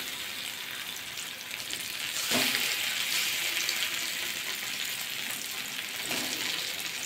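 Egg-topped eggplant rings sizzling as they shallow-fry in mustard oil, with a light knock of a utensil on the pan about two seconds in as a ring is turned, after which the sizzle grows a little louder.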